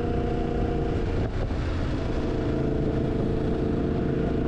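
Yamaha MT-10's crossplane inline-four engine running at a steady speed while riding, over a rough rush of wind and road noise; the engine note dips briefly about a second in.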